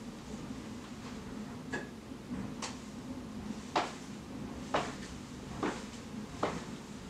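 Slow footsteps descending a flight of stairs, a sharp knock about once a second as each foot lands on a step, over a steady low hum.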